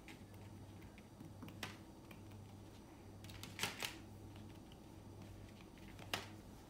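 Cotton swab dabbing acrylic paint onto paper: a few light taps and clicks, a short cluster of them about halfway through, over a low steady hum.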